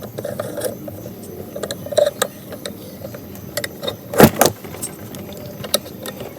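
Metal clicks and clinks of hand tools working a puller to free the flywheel magneto rotor of a Yamaha RXZ engine, with a loud double knock about four seconds in.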